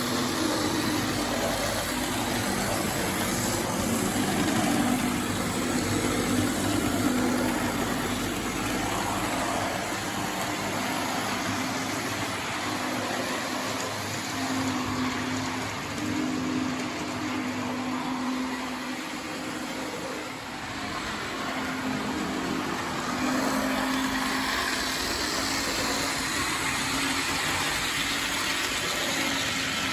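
Model SBB Am 4/4 diesel locomotive running on a model railway layout: a steady hum over an even running noise, the hum fading and returning a few times.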